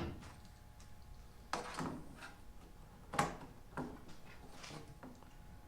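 A few light knocks and clicks, the loudest about three seconds in, as loose window trim pieces are handled and tried against the glass gasket.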